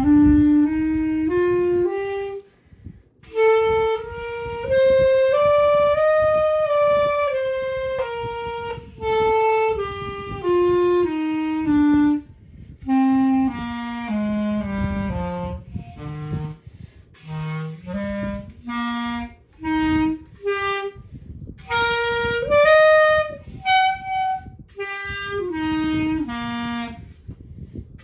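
Clarinet playing scales: runs of single notes stepping up and then back down, with short breaks between runs. Later in the passage the notes are shorter and separated.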